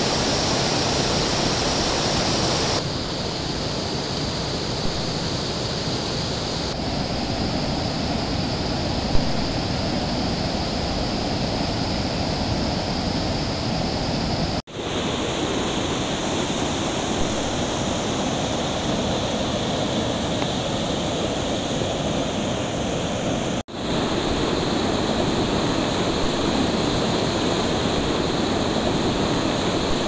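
River water rushing over a low concrete weir and down rocky rapids: a steady, loud noise of falling and churning water. It changes abruptly a few times and drops out for a moment twice, about halfway and about three-quarters through.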